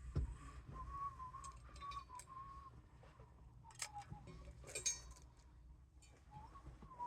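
A person whistling softly, a wandering tune of held notes with small slides. Two sharp clicks come a little past halfway.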